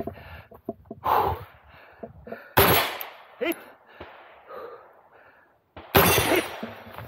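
A few separate gunshots on a practical-shooting stage, with hard breathing between them.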